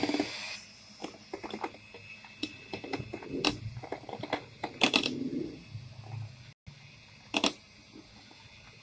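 Electric hand mixer beating whipped cream with melted chocolate and crushed Oreo in a glass bowl. It is loud for the first half second, then runs more quietly with a thin whine and irregular clicks and knocks from the beaters in the bowl, and one sharp knock about seven and a half seconds in.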